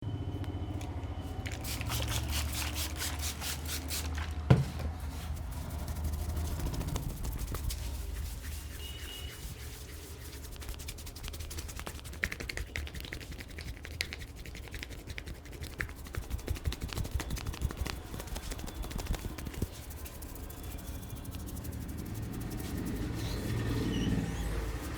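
Hands tapping and rubbing on a head and skin during a massage, in runs of rapid clicks, with one sharp slap or knock about four and a half seconds in.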